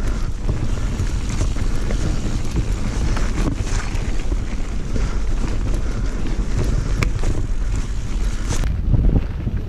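Mountain bike ridden at speed down a trail: heavy wind buffeting on the helmet-mounted action-camera microphone, with tyres rumbling over the rough ground and the bike clattering, including a couple of sharp knocks near the end.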